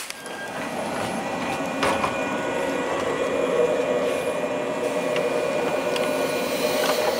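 Steady hum and whine of a standing red JR West 103 series electric train's onboard equipment, with several fixed tones, growing louder over the first second and then holding. A single short knock about two seconds in.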